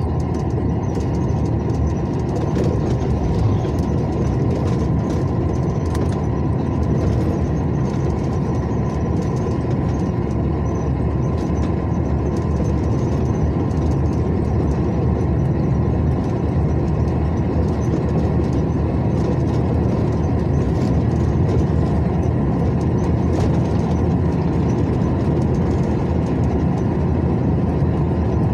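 Steady engine and road noise of a car driving along a highway, unchanging throughout.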